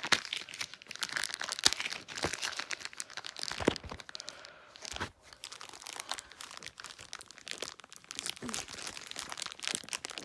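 Nerf gun packaging being handled and opened, with irregular crinkling, crunching and tearing of cardboard and plastic.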